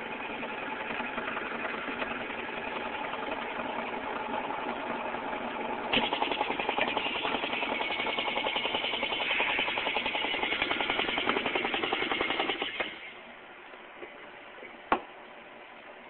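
Belt-driven vacuum pump running with a fast, even pulsing chatter. It grows louder about six seconds in, then drops away sharply about three-quarters of the way through, leaving a low steady hum, and a single click follows.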